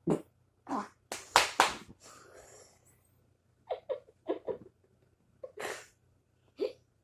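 Repeated short burps, about a dozen in all, mixed with breathy bursts. The loudest run comes around a second and a half in.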